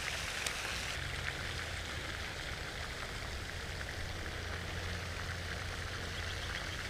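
Steady hiss of outdoor background noise with a low hum underneath and a couple of faint clicks near the start.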